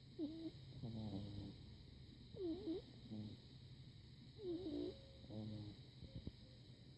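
Pug puppy snoring in its sleep: three breaths about two seconds apart, each a wavering, squeaky note followed by a lower, rougher one. A couple of faint clicks near the end.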